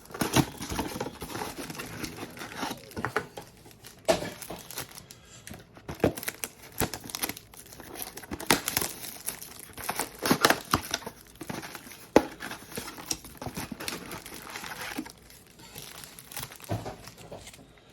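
Packaging of trading-card blaster boxes crinkling and tearing as they are opened by hand, in irregular rustles with sharp crackles.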